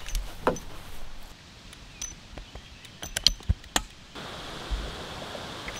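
Metallic clicks and clinks of a Smith & Wesson Model 327 revolver being unloaded and reloaded: the cylinder, ejector rod and moon clip handled by hand. There is one click about half a second in, and a quick run of sharper clicks about three seconds in.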